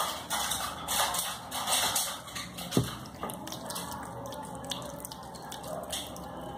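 Hands rubbing a wet gram-flour and milk paste over the face, a soft wet smearing close to the microphone, in bursts that die down after about three seconds. A single sharp click comes near the middle.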